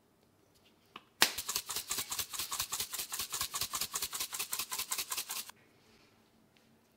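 Spice grinder ground over the bowl to add chilli flakes: rapid, even clicking of the grinding mechanism, about nine clicks a second for roughly four seconds, stopping suddenly.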